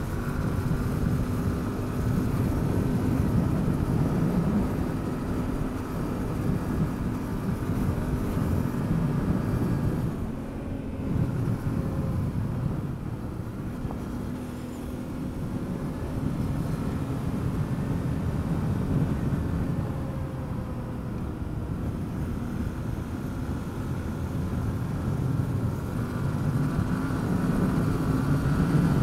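Yamaha Ténéré adventure motorcycle's engine running under steady throttle on a gravel road, with tyre and wind noise. The engine note eases off briefly about ten seconds in and builds again near the end.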